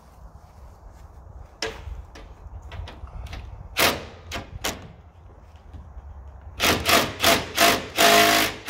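Sharp metal clicks and knocks at the pontoon's aluminum fence rail. Near the end a cordless drill/driver runs in several short trigger bursts, then one longer whir, working on the rail's mounting bolts.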